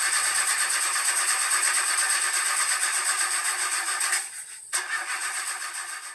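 A recorded engine sound effect, thin and tinny with no low end, running steadily in a fast flutter over a faint high whine. It drops out briefly about four seconds in, comes back, then fades away near the end.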